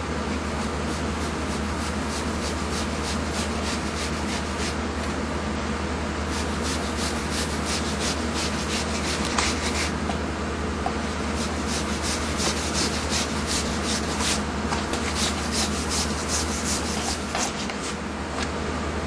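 Kitchen knife scraping the prickly spines off pufferfish skin, a run of quick rasping strokes that stops shortly before the end, over a steady low hum.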